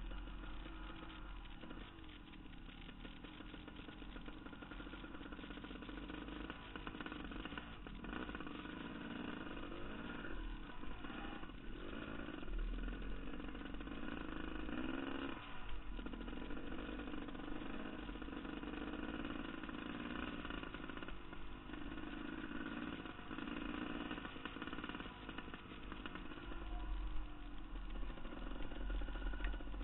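Dirt bike engine running as the bike is ridden along a sandy trail, its pitch rising and falling as the rider works the throttle, with wind rumbling on the helmet-mounted microphone.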